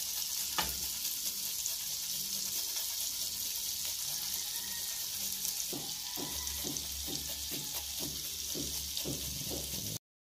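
Butter and garlic sizzling steadily in a stainless steel pan, with fresh ginger rasped on a metal hand grater over it in quick regular strokes, about three a second, from about halfway through. The sound cuts off suddenly near the end.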